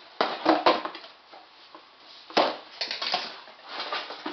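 A cardboard shipping box being handled and opened: a run of scrapes, rustles and knocks, with a sharp knock about halfway through.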